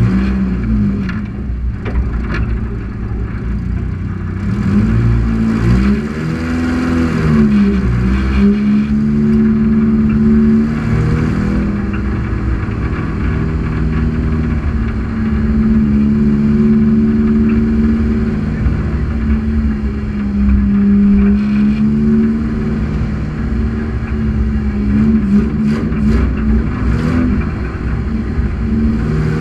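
Race car engine running at low revs, picked up by a camera mounted on the car, with one brief rev that rises and falls in pitch about seven seconds in.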